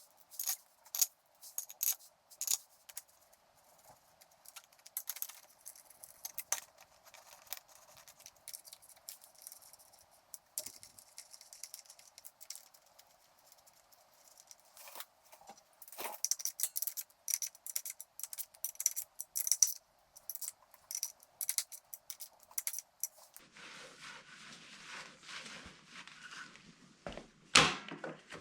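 Irregular metallic clinks and clicks of hand tools and small metal clutch parts being handled during reassembly. About 23 seconds in a steady hiss comes in, and there are a few louder clacks near the end.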